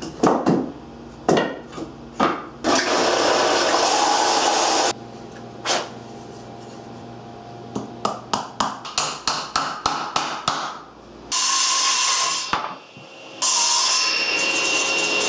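Workshop tool sounds on wood: scattered knocks and a few seconds of steady rushing noise, then a run of quick sharp taps about three to four a second, like hammering. After that a power tool runs steadily with a whine, stops briefly and starts again near the end.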